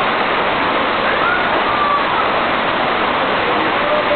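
Waterfall's rushing water: a loud, steady roar with no break.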